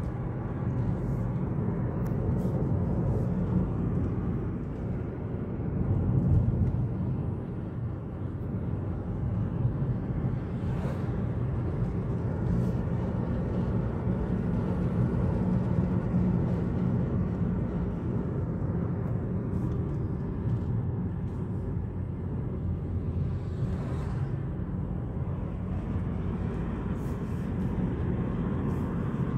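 Steady low rumble of a car's engine and tyres, heard from inside the cabin while driving, swelling briefly about six seconds in.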